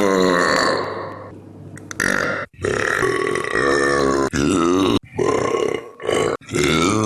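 A string of long, loud, deliberate belches by men, one after another, each cut off abruptly where the next begins.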